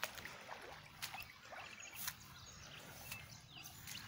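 Faint footsteps sloshing through shallow floodwater and soggy grass, about one step a second, over a low wash of water, with a few short high-pitched chirps.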